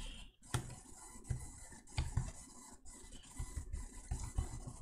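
A few scattered computer keyboard keystrokes, irregularly spaced, over faint room noise.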